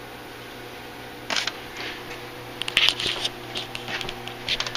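Handling noise: scattered rustles, scrapes and light clicks as styrofoam packing and the saw's box are touched, densest about three seconds in, over a steady low hum.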